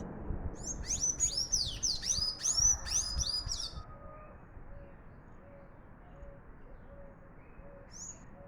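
Sanhaço tanager singing: a fast, jumbled run of high squeaky notes lasting about three seconds, then one short note near the end.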